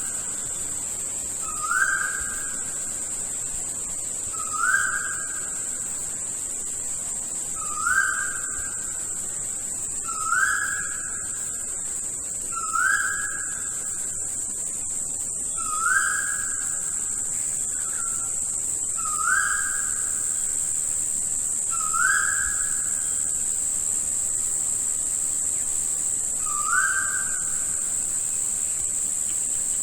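A rainforest bird repeating a single short whistled note, each rising quickly and then holding, about every three seconds, over a steady high-pitched insect buzz.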